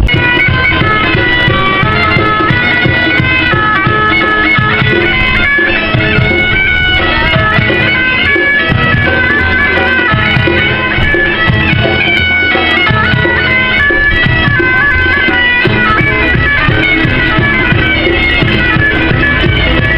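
Loud wind-instrument music: a high melody moving note to note over steady held drones, in the style of bagpipes.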